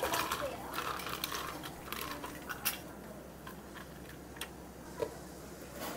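Ice cubes clattering from a metal scoop into a plastic cup, a quick run of sharp clinks over the first couple of seconds, then a few scattered clinks as espresso is poured over the ice.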